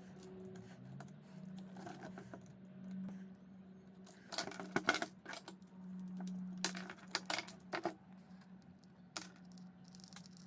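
Sharp metallic clicks and clinks as a screwdriver and small parts are worked inside an angle grinder's plastic motor housing during disassembly, in clusters about four seconds in and again around seven seconds. A faint steady low hum runs underneath.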